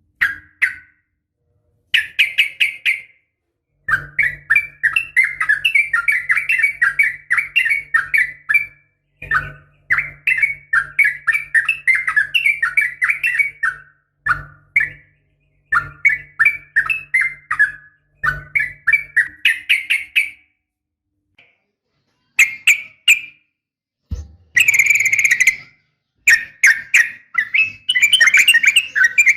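Yellow-vented bulbul (trucukan) song in its rapid 'ropel' form: quick, sharp notes poured out in runs of a few seconds, broken by short silences. A faint low hum lies under some of the runs.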